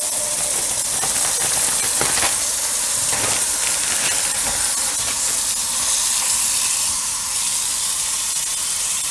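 Kitchen tap running in a steady stream into a plastic colander in a sink, splashing on pandan leaves as they are rinsed.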